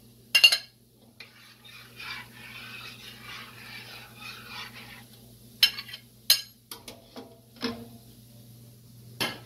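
A utensil clanking and clinking against a cooking pot, with a stretch of stirring in the middle: one sharp clank about half a second in, a soft scraping stir, then several more clinks near the end.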